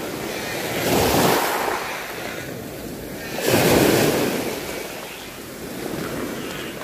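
Sea waves washing onto the beach: two louder surges of surf, about a second in and again about three and a half seconds in, over a steady wash.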